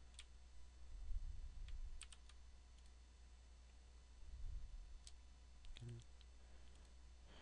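Faint, scattered clicks of a computer mouse and keyboard over a low steady hum, a few single clicks and small clusters of two or three.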